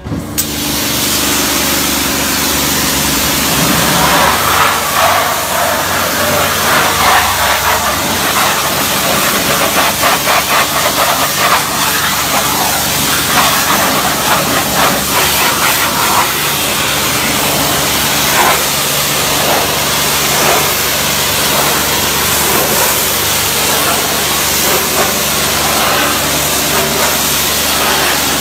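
High-pressure spray lance blasting a jet of water against a van's bodywork and wheel, a loud steady hiss and splash that shifts as the jet moves, over a steady low machine hum.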